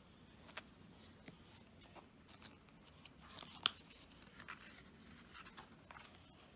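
Faint paper handling: photobook pages being turned, with light rustles and scattered small ticks and taps, one sharper click a little past halfway.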